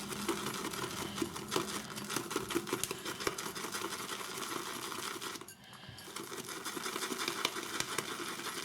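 Boar-bristle shaving brush whisking soap and water into lather in a bowl: a fast, even run of wet swishing and clicks, with a brief pause about two-thirds of the way through.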